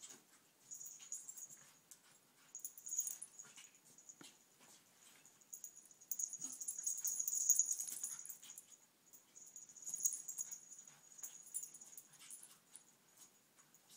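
Two small dogs play-wrestling, with scuffling and short dog noises coming in irregular bursts. The loudest stretch is about six to nine seconds in.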